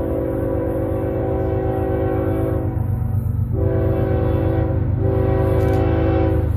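CSX freight diesel locomotive's air horn sounding three long blasts over the steady low rumble of the locomotive and train. The blasts break about three seconds in and again about five seconds in.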